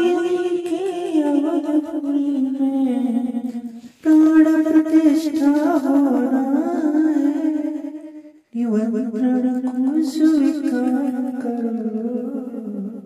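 A single voice singing a Hindi devotional song (bhajan) in three long phrases with held, wavering notes, with a short break between phrases.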